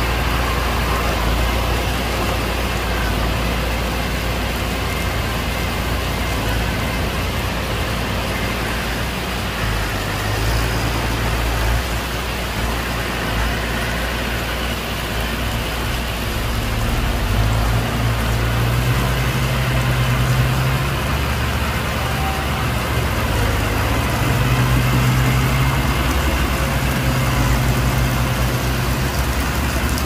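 Heavy diesel engine of earthmoving machinery running steadily under load, with its pitch rising as it is throttled up several times, once a little before the middle and twice in the second half.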